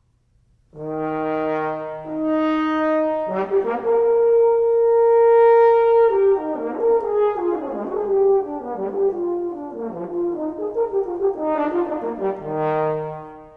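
French horn playing a short phrase. It opens with a few held notes stepping upward, swells into a long loud note, then runs through a string of quicker notes and ends on a held low note that dies away.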